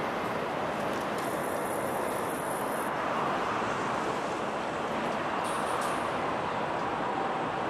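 Steady hum of city traffic, an even wash of noise with no single vehicle standing out.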